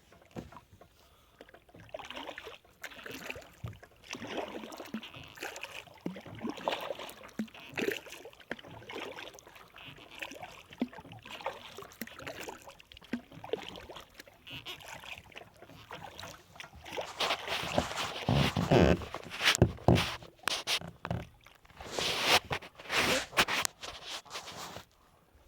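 Kayak paddle strokes, the blades dipping and splashing in the water, uneven and loudest in two spells in the second half.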